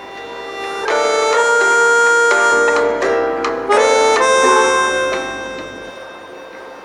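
Background music: sustained reedy chords that swell up about a second in, break off briefly near the middle, and fade after about five seconds.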